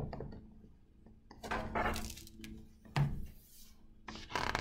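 Pages of a hardcover picture book being turned and the book handled on a table: paper rustling about a second and a half in, a short knock at about three seconds, and more rustling near the end.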